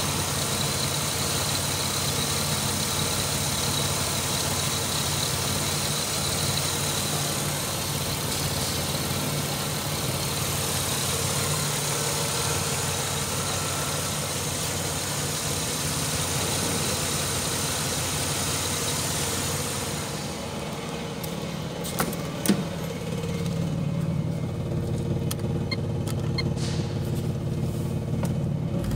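Holden Commodore 3.8-litre V6 idling steadily. About two-thirds of the way through the sound turns duller, heard from inside the car's cabin, with two sharp clicks a moment later.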